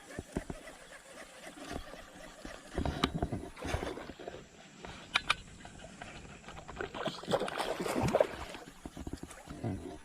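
Water sloshing and splashing, with scattered clicks and knocks and a louder stretch of splashing about seven to eight seconds in.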